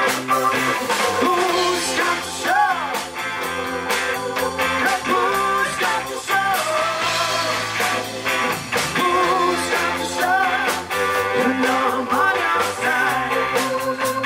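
Live rock band playing: electric guitar, bass guitar, drum kit and keyboard, with a woman singing over them at times.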